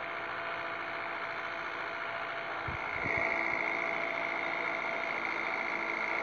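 Diesel engine of an excavator running steadily as the machine drives along a road, heard from on top of it, with a steady whine that grows louder about three seconds in.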